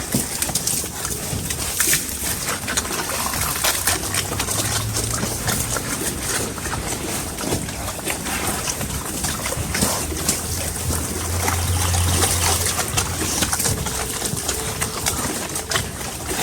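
Native pigs feeding, a dense run of small smacking and crackling eating noises.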